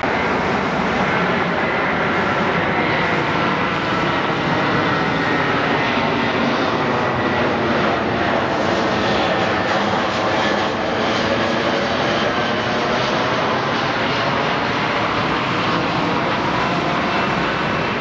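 Airplane flying low overhead: loud, steady engine noise with a high whine that drifts slowly in pitch.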